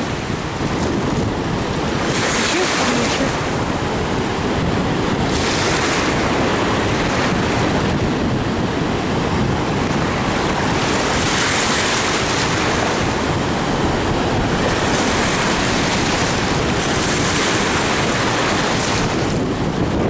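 Choppy Baltic Sea waves washing in at the water's edge, their hiss swelling every few seconds as each wave breaks, over a steady low rumble of wind buffeting the microphone.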